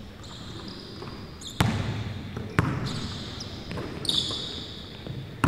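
A basketball bounces twice on a hardwood gym floor, about a second apart, while sneakers squeak on the court in short high chirps.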